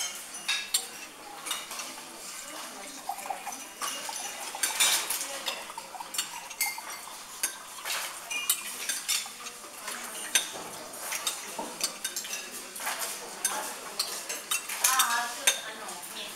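Cutlery clinking and scraping on china as people eat: a fork and knife on a salad bowl and a spoon against a soup cup, in many sharp, irregular clinks.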